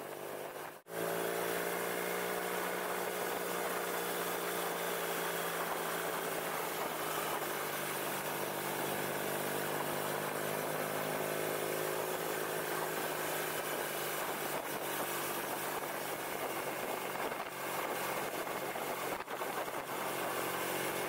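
BMW R nineT's boxer-twin engine running steadily at cruising speed, its pitch drifting only slightly, over a steady rush of wind noise. The sound drops out briefly about a second in.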